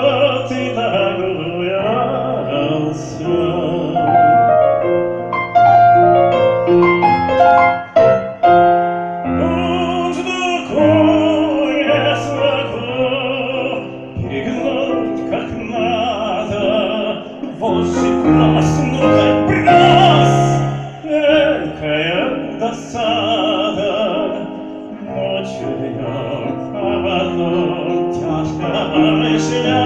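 A singer performing a song with strong vibrato in a classical style, accompanied by piano. A quick run of piano notes comes about four to nine seconds in.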